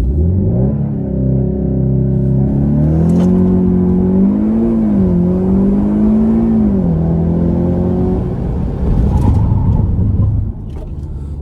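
VW T-Roc R's 2.0-litre turbocharged four-cylinder (EA888) with Akrapovič exhaust pulling hard through a launch-control start from standstill to 100 km/h: the engine note climbs steeply, dropping in pitch at each quick DSG upshift. After about eight seconds the revs fall back to a lower rumble as the car comes off the throttle.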